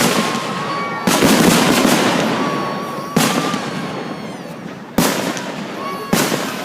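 Aerial fireworks shells bursting overhead: five sharp bangs about one to two seconds apart, each trailing off in a long rumbling echo. A thin whistling tone sounds between some of the bursts.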